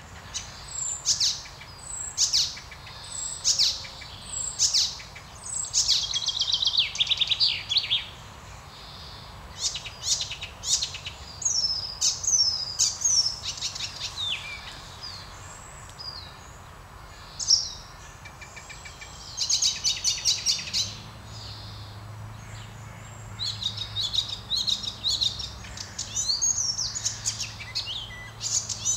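Icterine warbler singing: a long, varied song of quickly repeated notes, whistles and harsh chattering sweeps in short bursts, with a lull of a couple of seconds around the middle. A faint steady low hum joins in the second half.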